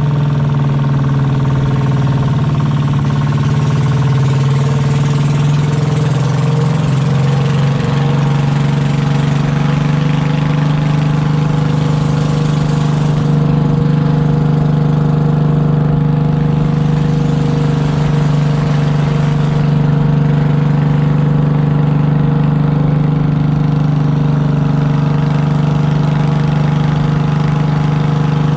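A small boat's engine running steadily at speed, a loud, constant drone, with water rushing along the hull.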